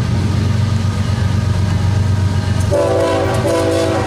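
CSX diesel freight locomotive approaching with a steady low engine and wheel rumble, then sounding its multi-chime air horn near the end in two blasts, the second following a short break.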